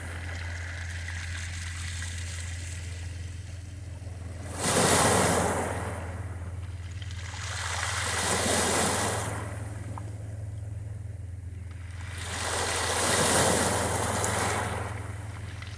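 Sea waves breaking on a beach and washing back, in three surges about four seconds apart; the first, about four and a half seconds in, breaks suddenly.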